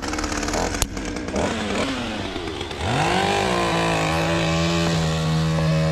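Chainsaw running at low revs, then opened up to full throttle about three seconds in, its pitch rising and then holding steady and high.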